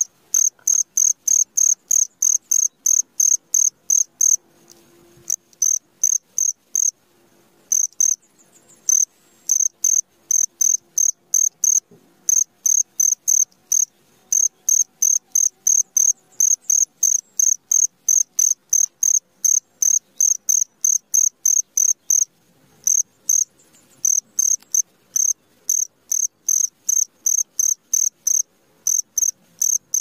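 Cricket chirping: a steady run of short, evenly spaced high chirps, about three a second, that stop briefly a few times.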